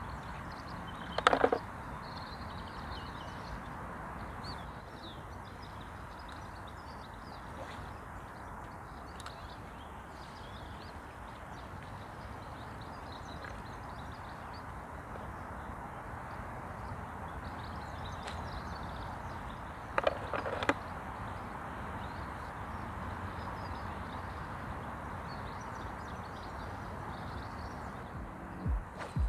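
Steady outdoor background noise on a riverbank with faint bird chirps. It is broken twice by short, sharp knocks or rattles, about a second in and again around twenty seconds in; these are the loudest sounds.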